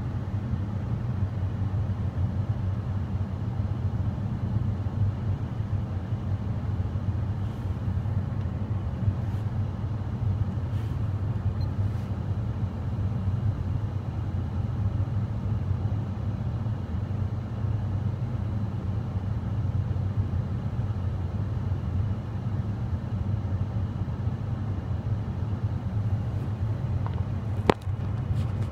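Steady low rumble inside a Kia Rio's cabin, with one sharp click near the end.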